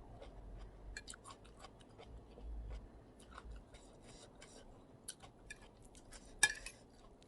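Close-up eating sounds: wet chewing and irregular mouth clicks and smacks from someone eating a spicy instant-noodle and seafood salad, with one sharper, louder click near the end.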